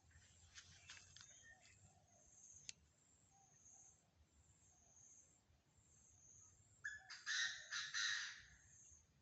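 A bird gives a loud, harsh call of several short parts about seven seconds in, after a stretch of faint background. A faint high chirping repeats steadily underneath.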